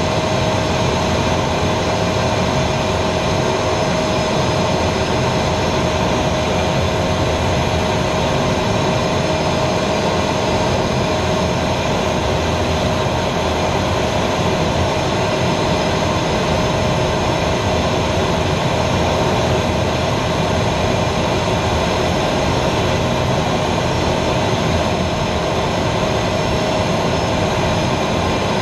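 Aero L-29 Delfín jet trainer in flight, heard from inside its cockpit: the single turbojet running steadily, mixed with the rush of air over the canopy, and a constant whine held at one pitch.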